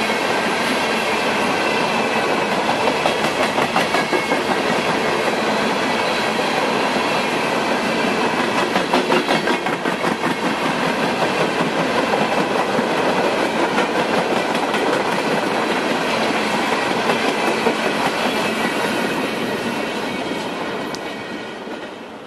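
Freight train of steel coal gondolas rolling past, wheels clacking over the rail joints with a steady rumble. The sound fades over the last few seconds as the end of the train goes by.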